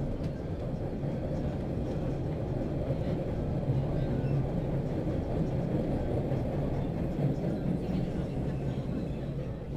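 Metro train in motion: the steady low rumble of the running train, swelling in the middle and easing near the end.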